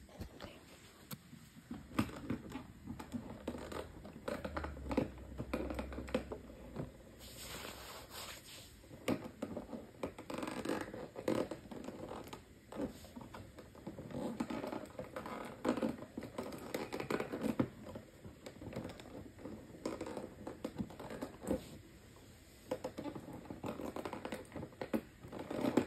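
Small advent-calendar toy figurine being unwrapped from its packaging by hand: irregular rustling, crinkling and scratching with short pauses.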